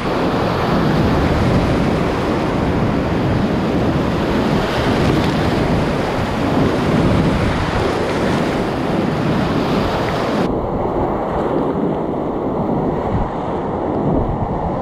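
Whitewater rapid on a swollen, muddy river rushing and crashing around a kayak, with waves splashing over the boat and the camera. The sound turns suddenly duller about ten seconds in, losing its hiss.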